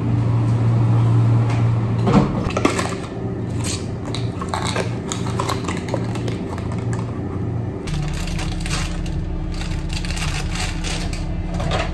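Plastic food packaging crinkling and rustling in the hands, then a snack packet being handled and torn open, with scattered clicks, over a steady low machinery hum.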